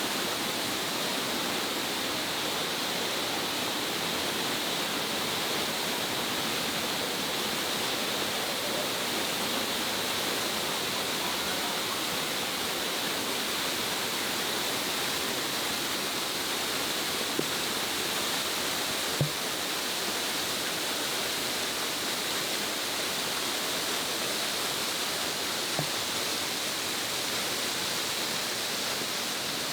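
Waterfall: a steady, even rush of falling water, with a few brief taps about two-thirds of the way through.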